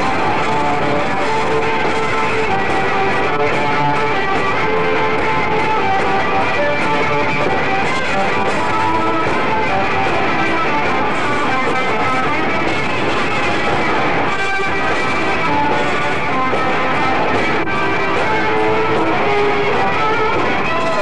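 Heavy metal band playing live at a steady loud level: electric guitar and bass guitar over drums.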